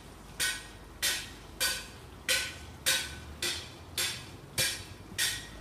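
Rhythmic clattering: nine sharp, rattling strokes, evenly spaced at close to two a second.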